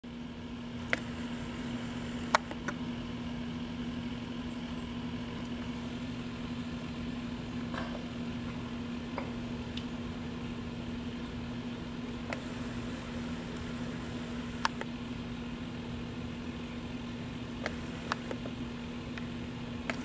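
A steady low mechanical hum, as from a motor or fan, with a few brief sharp clicks scattered through it; the loudest click comes a little over two seconds in.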